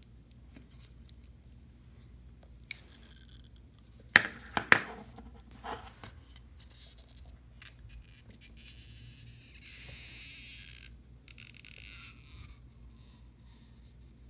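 Small handling and tool noises from iPhone 6 battery removal: a few sharp clicks and taps about four seconds in, then a scratchy hiss lasting about two seconds, with lighter ticks around it.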